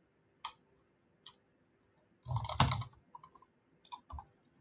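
Scattered computer keyboard keystrokes and mouse clicks: single clicks about half a second and a second in, one louder, longer knock about two and a half seconds in, then a few quick light clicks near the end.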